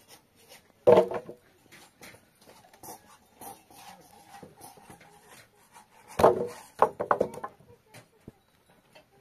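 Sheep bleating twice: a short bleat about a second in, then a longer, quavering bleat about six seconds in.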